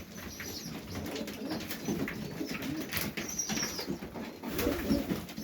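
Domestic highflyer pigeons cooing in a loft, a run of low warbling calls, with a few thin high-pitched squeaks in between.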